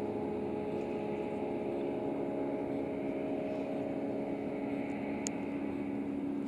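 Steady drone of an engine out of sight, its pitch shifting slightly about four seconds in. There is one sharp click a little after five seconds.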